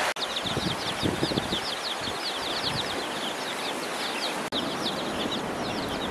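A pen of ducklings and chicks peeping, many short high calls overlapping in a rapid chatter. The sound drops out for an instant about four and a half seconds in.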